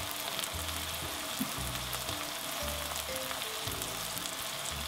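Sliced red onions and garlic frying in oil in a wok, a steady sizzle.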